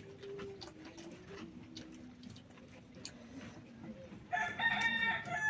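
A rooster crowing once, starting about four seconds in: one loud call of about a second and a half that drops in pitch at the end.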